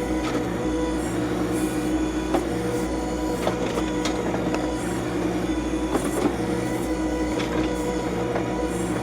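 John Deere 2025R compact tractor's three-cylinder diesel engine running steadily while its backhoe digs, with several short knocks scattered through.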